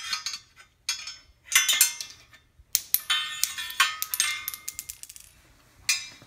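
Stainless-steel dasher of a barrel freezer clinking and rattling as it is handled, its metal parts knocking together in a string of short ringing clinks, thickest from about three to five seconds in.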